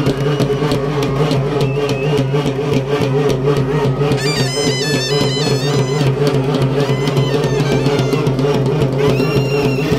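Traditional festival music: drums beaten in a fast, steady rhythm over a sustained low drone, with a high stepping melody line coming in about four seconds in and again near the end.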